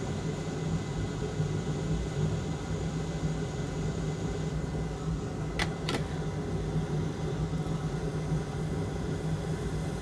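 Steady whir of a hot air rework station's blower, reflowing the solder on a tiny SMD resistor through a narrow nozzle. Two quick clicks come a little past halfway.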